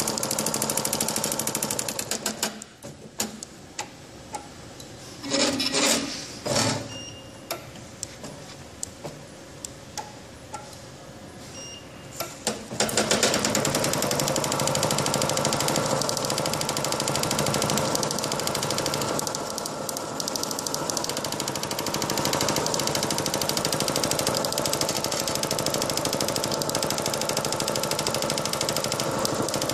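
Spangle film motif machine running with a rapid, even mechanical clatter of its stroke. The clatter breaks off about two seconds in, leaving a quieter stretch with a few scattered clicks and knocks, then starts again a little under halfway through and runs on.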